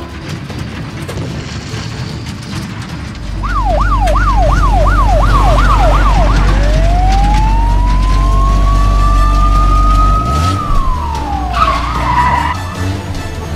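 Vehicle sound effects: a deep engine rumble starts about three seconds in. Over it, a siren yelps rapidly up and down for about three seconds, then a single tone rises slowly and drops away. A short tyre-squeal-like screech comes near the end.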